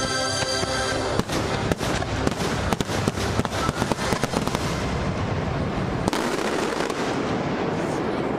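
Fireworks going off in a rapid volley of bangs and crackles over loud show music. The bangs start about a second in and are densest for the next few seconds, then thin out into crackling.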